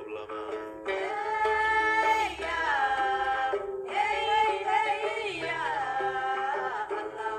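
Background music: a melody of long held, wavering notes in two phrases, with a brief break about halfway through.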